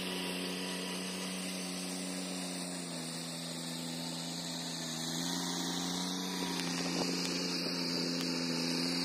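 An engine running steadily at an even speed, giving a constant hum. Its pitch dips slightly and recovers a few times.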